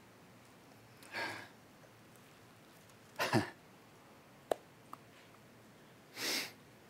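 A person's breath close to a microphone: three short, breathy exhalations about a second, three and six seconds in, the middle one ending in a low sigh, with two faint clicks between.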